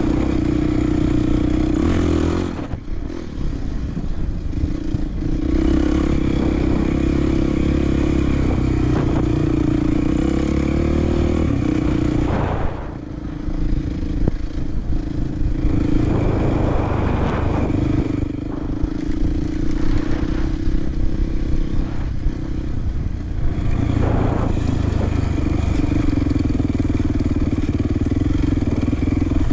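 Off-road trail motorcycle engine running steadily under throttle. Its note drops off briefly about four times, then picks up again.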